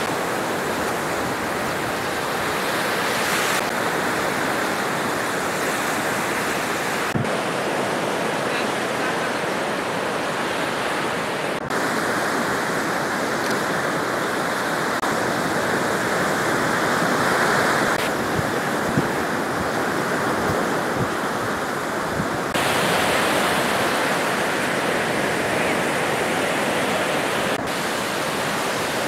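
Surf breaking on a sandy shore, a steady rushing noise that changes abruptly in level and tone several times.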